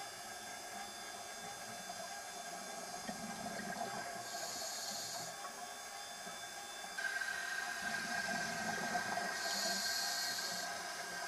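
Scuba diver breathing through a regulator, heard underwater: two drawn breaths hiss about five seconds apart over a steady wash of water and bubble noise. A steady high tone comes in a little past halfway.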